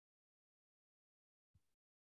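Near silence, with only a faint, brief sound about one and a half seconds in.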